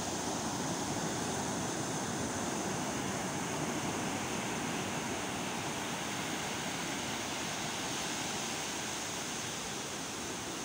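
Sea surf breaking on a sandy beach: a steady rushing wash of waves.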